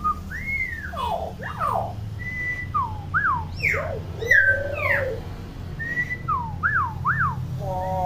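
Common hill myna giving a rapid string of loud, clear whistles that sweep up and down in pitch, with a harsh note about halfway through.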